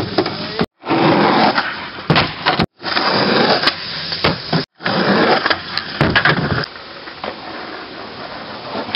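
Skateboard wheels rolling over wooden boardwalk planks, with sharp board clacks and slaps on the wood. It comes in short clips that cut off abruptly, and is quieter and steadier near the end.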